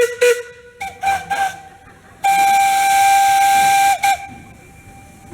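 Steam locomotive whistle: a few short toots, then one long blast of nearly two seconds and a final brief toot.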